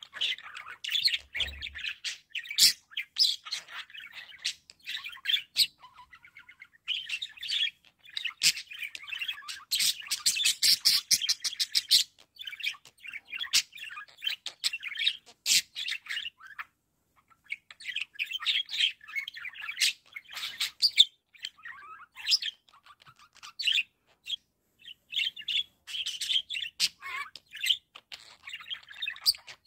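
Pet budgerigars chattering and warbling in phrases of quick chirps and squeaks, broken by short pauses. About ten seconds in there is a fast run of clicky notes.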